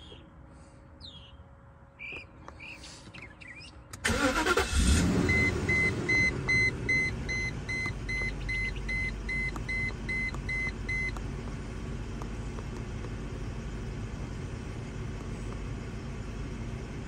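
A Mercedes S500 coupe's V8 is cranked and catches about four seconds in, then settles into a steady idle. A chime beeps about twice a second for several seconds just after it starts.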